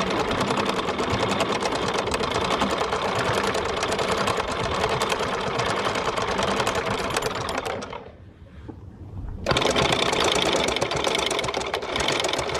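Electric anchor windlass running, the chain rattling steadily over the gypsy and bow roller. It stops about 8 seconds in and starts again a second and a half later.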